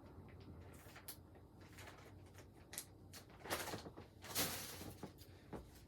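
Faint handling noises, light rustles and small knocks, with two louder rustling scrapes about three and a half and four and a half seconds in.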